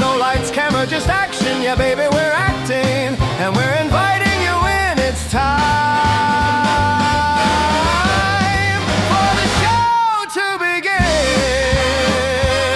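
Upbeat rock-style theme song music with a steady bass line and long held lead notes that bend in pitch. The bass drops out briefly about ten seconds in, then the music picks up again.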